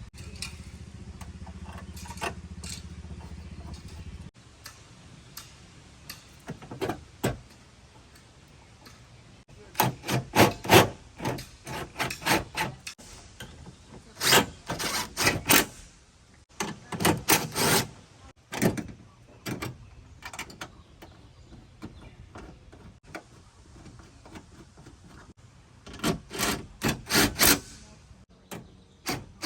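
Hand work on a car window regulator inside an open door: several bursts of sharp clicks and clatters from parts being handled and fitted. A low steady hum in the first four seconds stops suddenly.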